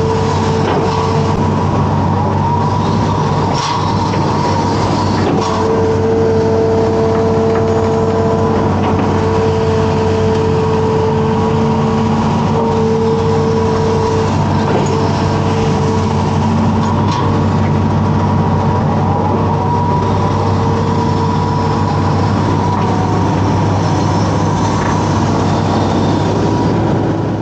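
Amphibious excavator's diesel engine running steadily under load while the boom and bucket work, with a higher whine that comes and goes and a few clanks.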